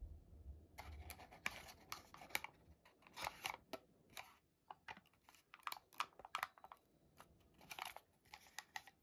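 Sheet of origami paper crinkling and crackling as fingers press and crease it into folds: a string of short, crisp crackles, in clusters rather than one steady rustle.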